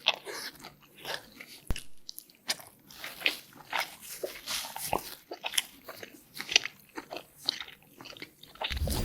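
Close-miked crunching and chewing of a Hot Cheetos-coated mozzarella corn dog: a run of sharp, crackly bites and chews.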